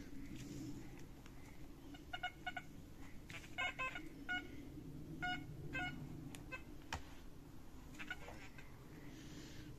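Metal detector giving short electronic beeps, several in quick clusters, as its coil is swept over the ground.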